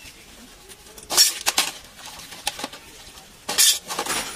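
Spoons and dishes being washed by hand in a metal basin of soapy water, clinking against the basin and each other with some splashing, in two bursts: about a second in and again near the end.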